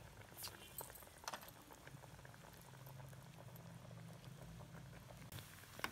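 Faint sizzling and bubbling of masala vadas (chana dal fritters) deep-frying in hot oil in an aluminium pot, with a few sharper crackles in the first second or so.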